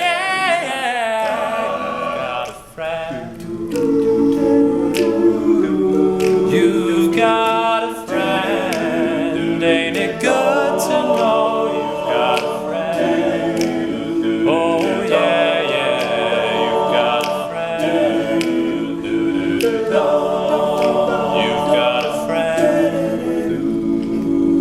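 Male a cappella vocal group singing close-harmony chords, with sustained backing voices under a lead line and short crisp clicks keeping a beat.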